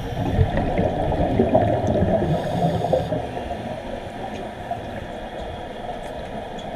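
Scuba regulator exhaust bubbles gurgling and rumbling as a diver breathes out, heard underwater. A burst of bubbling in the first three seconds, then a quieter underwater bubbling.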